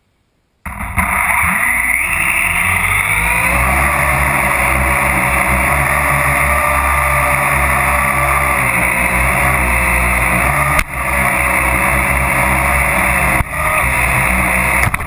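Parrot AR.Drone quadcopter's four electric rotors spinning up about a second in, rising in pitch as it lifts off carrying a GoPro camera, then a steady loud whir heard close up from the camera mounted on the drone. The sound dips briefly twice in the last few seconds.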